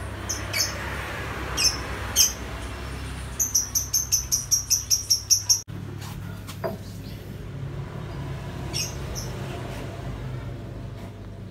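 A small bird chirping repeatedly, with a quick run of about six sharp high chirps a second midway, over a steady low hum and soft hiss.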